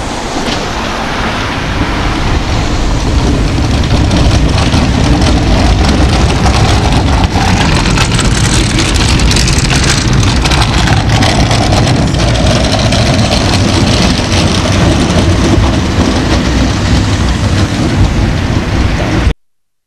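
Vintage tram car 4101 rolling past close by: a loud, steady rumble of wheels on the rails that builds over the first few seconds and then cuts off abruptly near the end.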